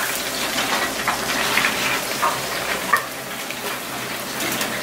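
Deep-fryer oil at about 350°F sizzling steadily, with a few light clicks; the sharpest comes about three seconds in.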